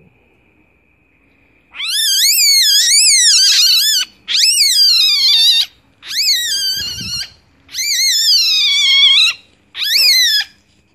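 Civet cub giving five loud, high-pitched wavering distress calls, each lasting one to two seconds, with short gaps between.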